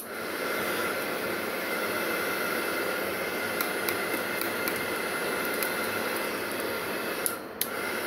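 Homemade 12 V vacuum cleaner driven by a 385 DC motor, running with a steady rush of air and a high motor whine. The motor is switched to reverse, so the fan is blowing the collected paper bits back out. About a second before the end it dips briefly and picks up again.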